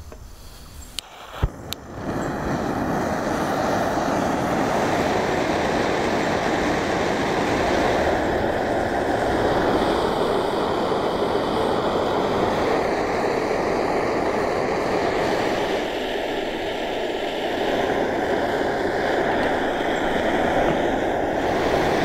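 Two clicks from a long-nosed utility lighter, then the CAMPINGMOON XD-3 butane stove's burner lights about two seconds in and burns with a loud, steady rushing noise under a kettle of water.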